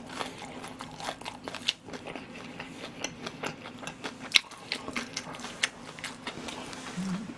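Close-miked chewing of a mouthful of fried pork tangsuyuk in soy sauce, with scattered crunches of the batter and small wet mouth clicks.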